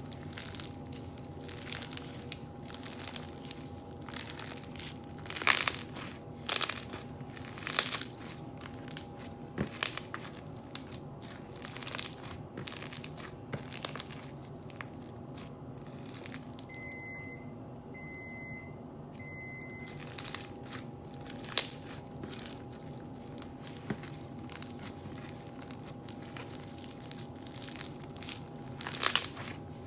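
Floam slime (slime packed with foam beads) being squeezed and worked by hand, giving irregular crunching and crackling, with a few louder crunches. Three short high beeps sound about halfway through.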